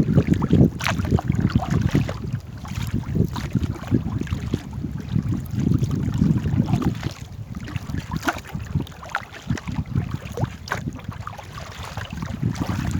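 Gusty wind buffeting the microphone in a low, uneven rumble, with scattered light splashes or knocks.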